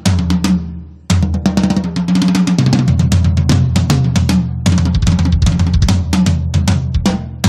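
Studio band recording with the drum kit to the fore: quick snare and bass-drum hits and fills over sustained low bass notes. The music thins out and fades just after the start, then the full band crashes back in about a second in.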